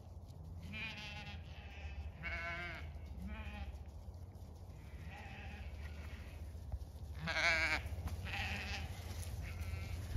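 Zwartbles sheep bleating, about seven separate quavering bleats from the flock, the loudest about seven seconds in.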